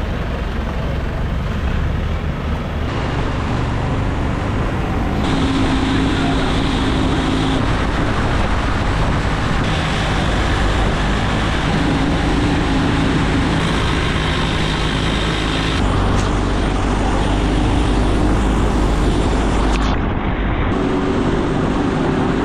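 A motorboat's engine running steadily under way, with a low hum and the rush of water and wind around the boat.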